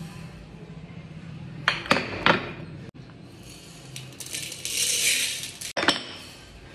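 Dry split lentils (dal) poured from a glass jar into a metal pot, a rushing rattle lasting about a second, preceded by a few sharp clinks of the glass jar being handled and followed by a single knock near the end.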